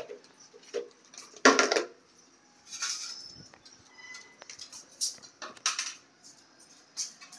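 Stainless steel plate and fork clinking and clattering as they are picked up and carried, in a series of short clatters, the loudest about one and a half seconds in.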